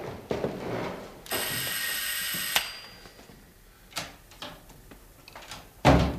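An electric doorbell buzzes once for about a second and a half. A few sharp clicks follow, as of a door lock being worked, and a loud thump comes near the end.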